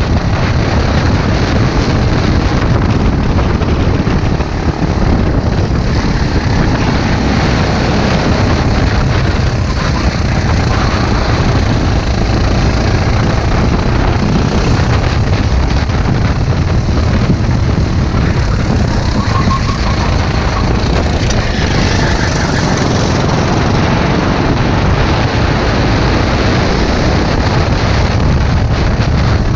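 Go-kart engine running hard at racing speed, heard from onboard the kart, a loud steady drone.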